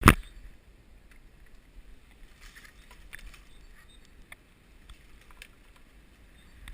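One sharp, loud click at the very start, then faint scattered clicks and soft rustling.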